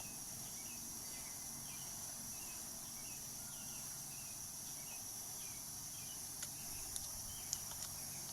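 Faint, steady chirring of insects such as crickets, with a few small sharp clicks near the end.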